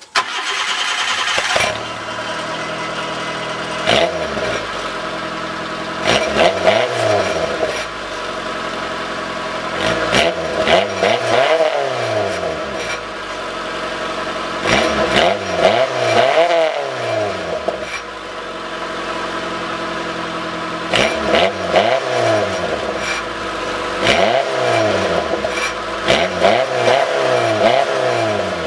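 Nissan Micra K10 exhaust through a Magnaflow end silencer: the engine starts up and settles to idle. It is then blipped again and again, each rev rising and falling quickly in pitch, in about half a dozen clusters with idle in between.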